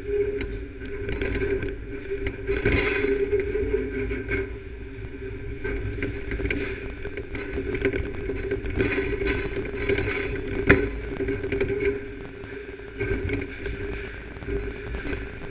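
Electron beam irradiator's conveyor and machinery running, heard muffled from inside a lead-shielded camera box: a low rumble under a steady hum. Two sharp clicks cut through, one a few seconds in and a louder one about two-thirds of the way through.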